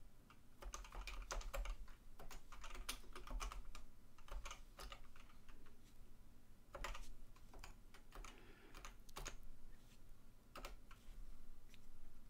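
Typing on a computer keyboard: quiet key clicks in short, irregular runs with brief pauses.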